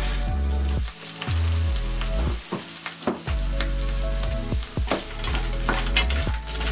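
Peeled shrimp sizzling in hot olive oil in a non-stick frying pan as they are tipped in and stirred with a wooden spatula, with scattered sharp clicks and pops.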